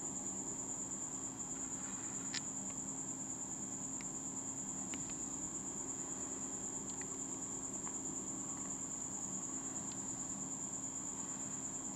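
A cricket trilling steadily at a high pitch, with a faint low hum beneath it and a few faint clicks.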